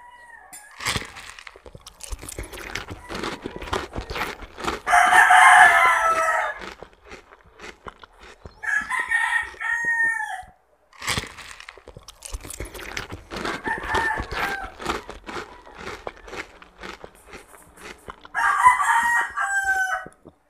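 A rooster crows four times, about every four to five seconds. Underneath are close crunching and chewing of firm, sour Señorita mango slices eaten with shrimp paste.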